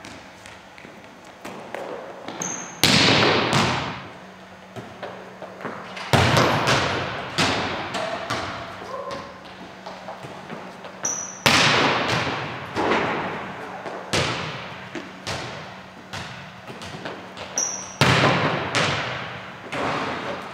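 A volleyball struck hard four times, each hit echoing around a large gym, with lighter knocks in between as the ball bounces on the hardwood floor.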